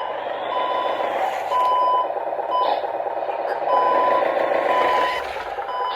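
An RC truck's sound module playing a truck reversing beeper, about one beep a second, over a recorded engine running sound from its small built-in speaker: the model is being driven backwards.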